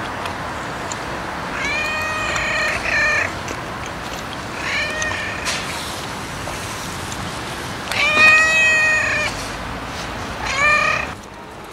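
Domestic cat meowing four times, the third meow the longest and loudest.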